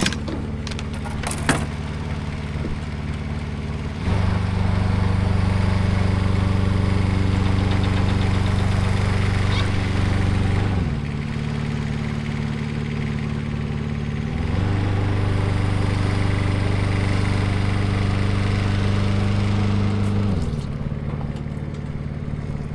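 Engine of a CMC 72HD Arbor Pro tracked aerial lift running steadily. It speeds up about four seconds in, slides back down to a lower speed near the middle, speeds up again and drops back near the end.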